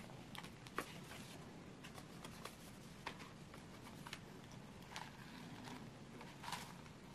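Faint handling noise of paper cards against a clear plastic ring binder: scattered light clicks and taps, with brief paper rustles just after a second in and again near the end.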